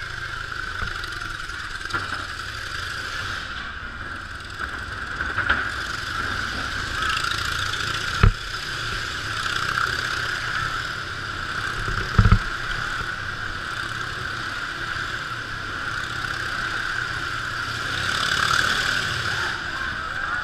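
Motorcycle engine running steadily as it circles the wooden Wall of Death, growing a little louder near the end, with two short sharp thumps, about eight and twelve seconds in.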